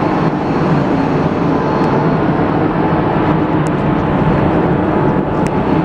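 NS Class 1700 electric locomotive running beside the platform, a loud, steady hum and rush from its fans and electrical equipment, with a couple of faint clicks near the end.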